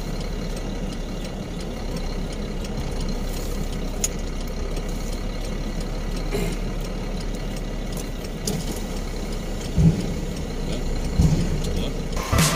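Heavy truck's diesel engine running steadily at low speed, with a couple of short low thumps near the end.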